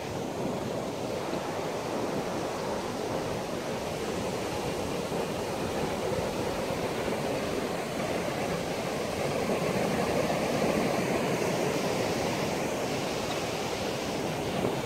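Ocean surf breaking and washing up a sandy beach: a steady rush of noise that swells a little about two-thirds of the way through.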